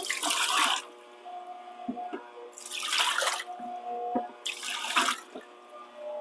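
Kitchen sink tap running in three short bursts, each about a second long, turned on and off in turn.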